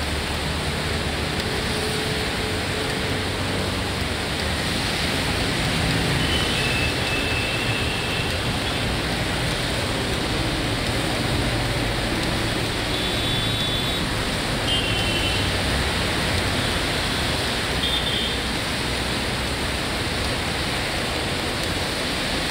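Road traffic in the rain: a steady hiss of tyres on wet road and falling rain, with vehicles passing. Several short high-pitched horn beeps sound around the middle and again a little later.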